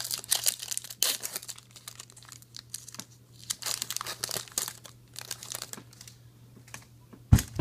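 Foil wrapper of a trading card pack crinkling and tearing as it is pulled open by hand, in irregular crackles. A single sharp knock near the end.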